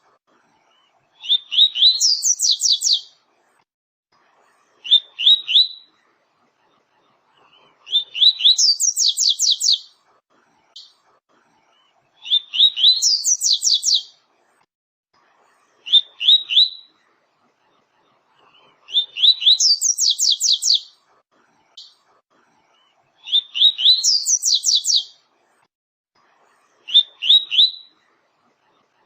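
Double-collared seedeater (coleiro / papa-capim) singing its 'tui-tui' song: high whistled phrases about two seconds long, repeated every few seconds, each opening with a few lower notes and climbing into a quick run of rising notes. Three shorter phrases come in between.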